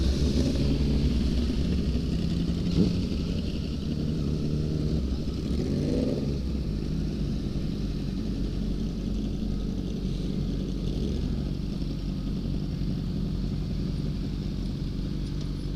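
Sport motorcycle engine running at low speed, heard from the rider's own bike. The revs rise and fall briefly about six seconds in, then settle to a steady low running note.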